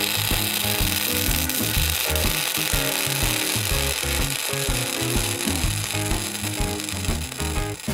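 Electric arc welding on the cracked exhaust-manifold section of a Suzuki Alto Works HB11S cylinder head: a steady crackling hiss of the arc that starts abruptly and stops just before the end. Background music plays underneath.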